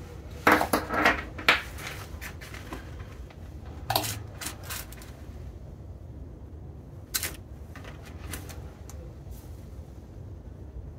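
Multimeter test probes and leads being handled and set down, and a soft meter case rummaged through: a scatter of small plastic clicks and clatters, several close together in the first second and a half, then single ones about four and seven seconds in.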